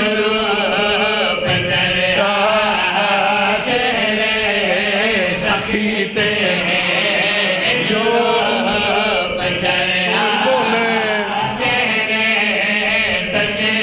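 Several men chanting a devotional verse together into microphones, in long held notes that rise and fall.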